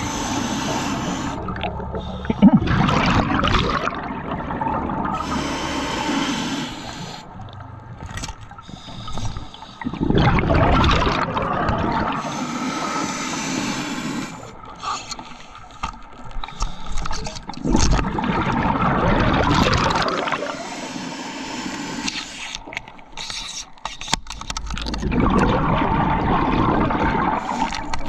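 Scuba regulator underwater: a diver's exhaled air bubbling out in about four long bursts several seconds apart, with quieter breathing between.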